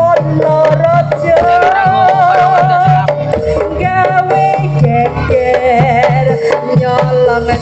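Javanese jaranan gamelan music played live over loudspeakers: kendang drums beat steadily under a high, wavering melody.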